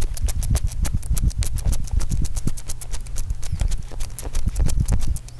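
A rapid run of knocks and thumps, several a second, loud and irregular, stopping suddenly near the end.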